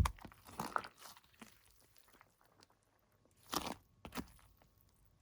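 Crunchy chocolate slime being worked, giving short crisp crunches: a cluster in the first second, then a quiet gap, then two more crunches past halfway.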